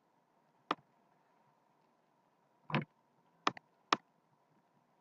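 Computer mouse clicks: one sharp click under a second in, then a cluster of three or four clicks about three to four seconds in.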